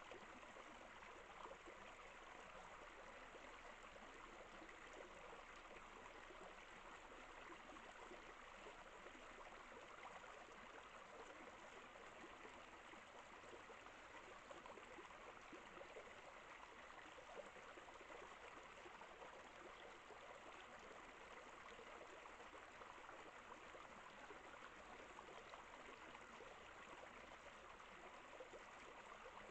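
Faint, steady rushing of flowing water from a stream, with no distinct rustles or calls over it.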